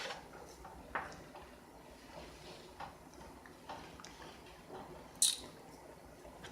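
Faint kitchen handling sounds: a few light clicks and taps, with one short sharp scrape or hiss about five seconds in.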